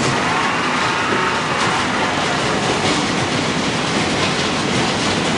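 Corrugated-board production line (corrugator) running: a steady, dense mechanical clatter and rumble of rollers and conveyors with faint ticks through it.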